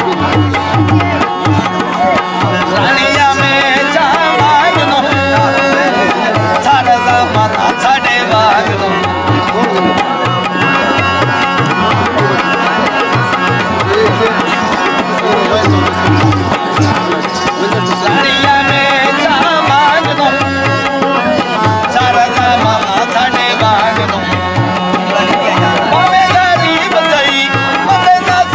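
Live folk music: a tabla pair played in a steady, lively rhythm with deep bass-drum strokes, under a harmonium melody.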